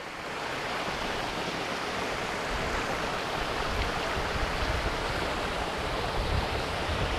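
Small mountain stream splashing over a low step of rocks in its bed: a steady rush of running water that swells slightly in the first second.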